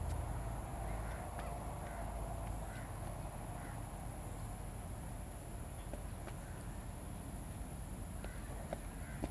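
A crow cawing several short times, about a second apart, over a steady low rumble.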